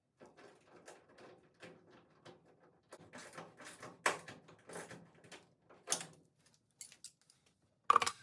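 Irregular knocks, scrapes and clicks of metal parts and tools being handled while a body mount bushing is fitted, ending in one sharp, louder clank near the end.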